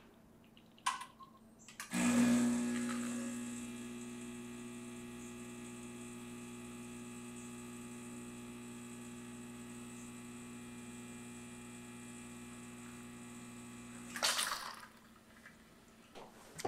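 Rocket Giotto espresso machine's pump humming steadily while it pulls a shot. It starts abruptly about two seconds in and stops about fourteen seconds in with a short hiss.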